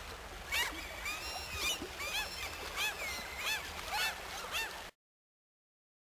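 A flock of waterbirds calling, many short rising-and-falling cries in quick succession over a low steady rumble. The sound cuts off abruptly about five seconds in.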